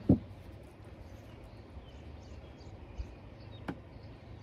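Coolant concentrate pouring from a plastic gallon jug into a plastic bucket. The jug gives one glug just after the start, then the pour runs faintly with two small glugs later on.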